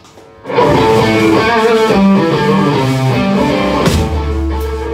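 A live rock band kicks in about half a second in, with electric guitar, bass and drums playing loudly together.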